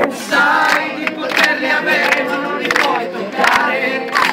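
Concert crowd singing together in chorus, with a sharp beat about every two-thirds of a second.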